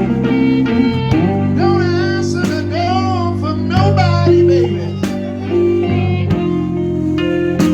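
Live blues band playing an electric-guitar-led passage over a keyboard, with wavering, bending lead notes over a steady low bass line.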